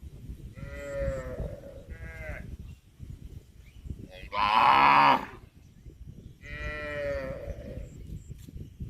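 Cattle mooing: four calls, two short ones near the start, a loud, longer one about four seconds in, and another drawn-out one later on.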